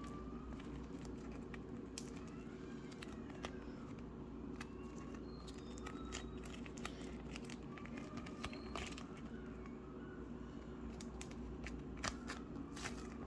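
Play-Doh feathery slime being squished and stretched by hand: an irregular stream of sticky crackles, clicks and small pops, a little denser and louder near the end.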